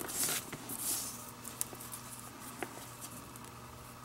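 Leather lace being pulled through the lacing holes of a catcher's mitt: two short rubbing swishes in the first second, then a few faint ticks.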